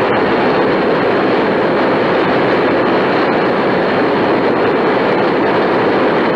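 Loud, steady rushing background noise in a DC-10's cockpit, played back from its cockpit voice recorder, muffled by the recorder's narrow range with little high treble.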